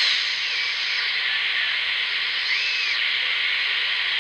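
Shortwave receiver audio from a modified Digitech AR1758 portable radio tuned near 7 MHz: steady hiss of band noise with a weak single-sideband amateur signal faintly showing through as a few wavering tones. The SSB is resolved by an external regenerative receiver oscillating nearby as the beat frequency oscillator.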